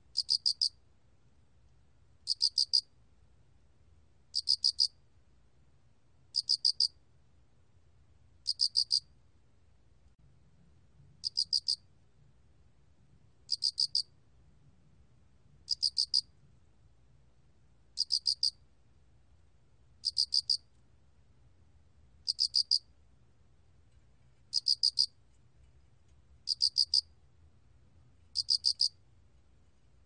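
알락귀뚜라미 cricket calling, recorded at 24 °C: short high-pitched chirps of a few quick pulses each, repeated evenly about every two seconds.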